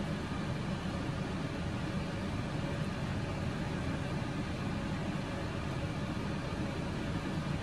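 A steady low hum with hiss, even throughout and without distinct clinks or knocks.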